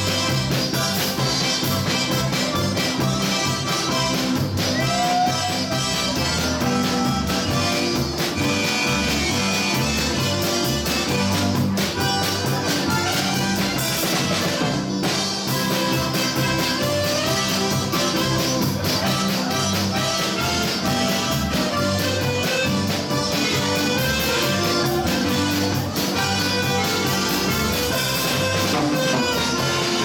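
Live dance band playing polka music, with accordion and keyboard over a steady, even bass beat.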